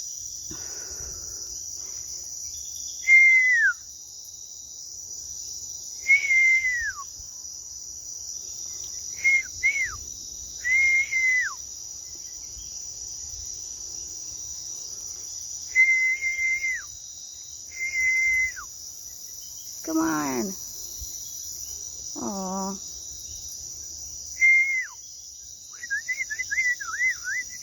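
A person whistling, again and again, over a steady high chorus of night insects. The notes are clear and held level, then drop off at the end. Two falling voice-like calls come about two-thirds of the way through, and a quavering whistled trill comes near the end, as she tries to get the owl's attention.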